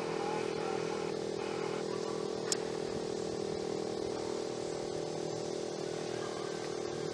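Federal Signal STH-10 dual-tone outdoor warning siren sounding at a steady pitch. There is a single sharp click about two and a half seconds in.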